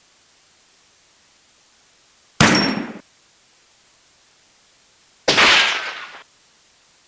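Two rifle shots about three seconds apart, each a sharp crack that dies away over about a second, fired at hogs at night.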